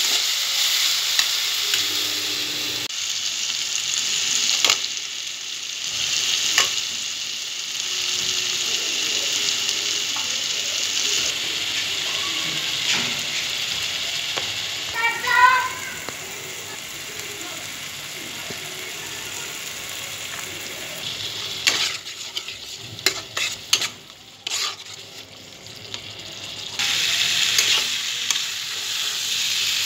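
Onion, ginger and garlic frying in hot oil in a non-stick wok, sizzling steadily while a spatula stirs and knocks against the pan. A brief high warbling chirp sounds about halfway through. Near the end the sizzle drops for a few seconds under a run of clattering knocks, then comes back loud as chunks of young jackfruit and potato are stirred into the pan.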